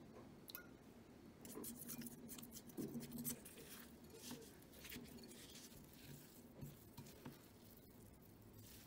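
Wooden spoon stirring and mashing rolled oats and steamed sweet potato in a ceramic bowl: faint, irregular scraping and rustling strokes, loudest about three seconds in.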